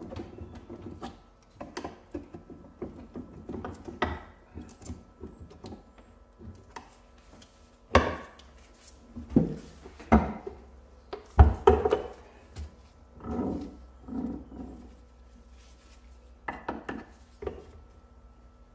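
Cast metal transfer case housing being rocked and knocked apart by hand, its halves stuck on dowel pins: scattered clunks, knocks and scrapes, with one sharp knock about eleven seconds in.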